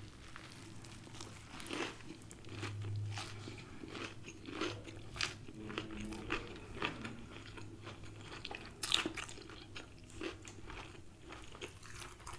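A person biting and chewing crispy fried food, with many short irregular crunches and mouth clicks.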